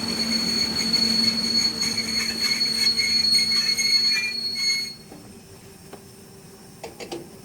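A train running with a steady high-pitched squeal or whine, which stops abruptly about five seconds in, followed by a few faint clicks.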